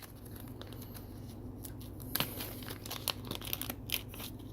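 Light clicks and scrapes of a shim being worked into a Mako 427 lock's core, over a low steady hum.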